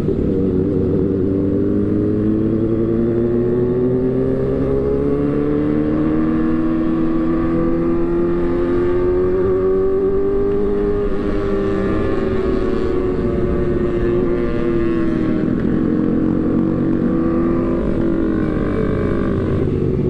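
Motorcycle engine running steadily under way, its pitch slowly rising for about ten seconds, then easing off and settling.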